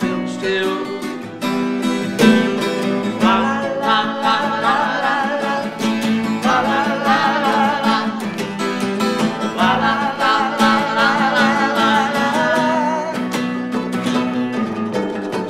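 Acoustic guitars, a nylon-string Martin N-20 among them, playing together in a slow country song, with a man's voice singing a wavering melody over them.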